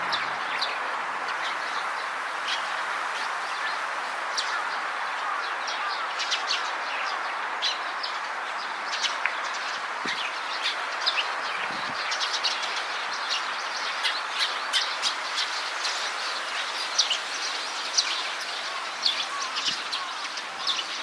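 Small birds chirping: many short, high chirps scattered throughout, over a steady background hiss of outdoor noise.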